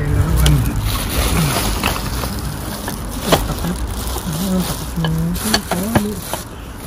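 Plastic garbage bags rustling and crinkling as they are handled, with a few sharp knocks and a low, muffled voice murmuring.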